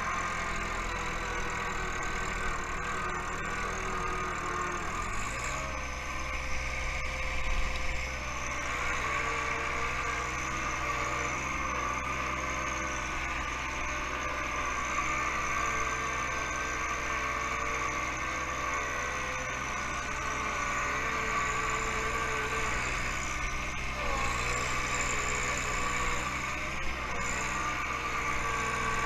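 John Deere 1-series compact tractor's three-cylinder diesel engine running steadily while the backhoe works snow. The engine speed steps up about five seconds in and shifts again near the end.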